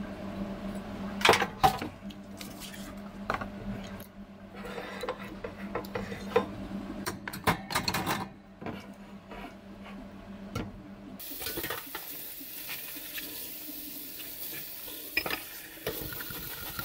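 Cafe dishware and utensils being handled: scattered clinks and knocks, busiest in the first half, over a steady low hum that stops about two-thirds of the way through.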